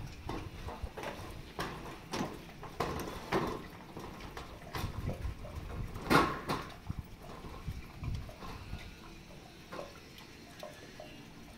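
Footsteps on corrugated metal roof sheets, an irregular bang or thud with each step, the loudest about six seconds in, then quieter and sparser near the end.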